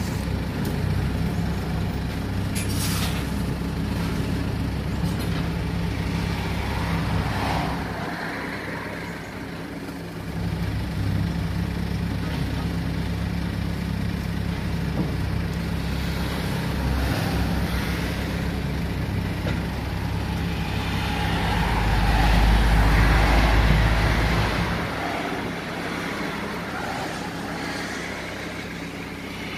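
Steady low rumble of motor vehicle engines, swelling louder for a few seconds about twenty-two seconds in.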